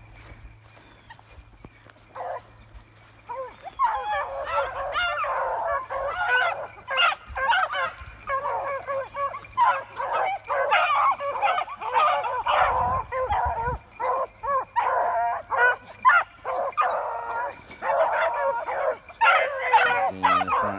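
A pack of beagles baying on a rabbit's track, many voices overlapping. It starts after a quieter spell, with a few calls at about two seconds and the full pack joining in about four seconds in.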